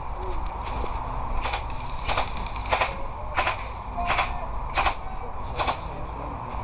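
Airsoft gun firing single shots: about seven sharp cracks, roughly one every two-thirds of a second.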